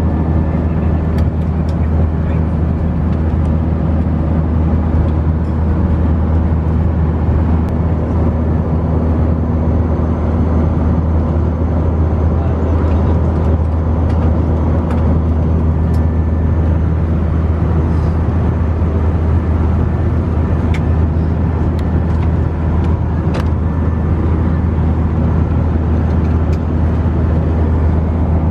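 Steady cabin noise inside an Airbus A319: a constant low drone of engines and rushing air, with a few faint clicks.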